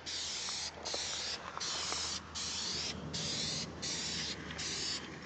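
Aerosol spray can of Krylon Fusion flat black paint hissing in a string of about seven short bursts, each around half a second, with brief pauses between.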